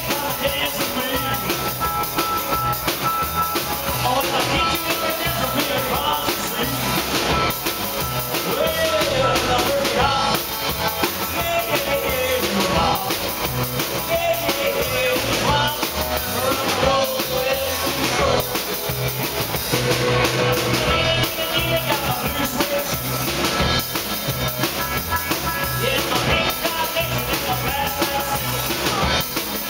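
Live rock 'n' roll band playing: a driving drum-kit beat under electric guitars and bass.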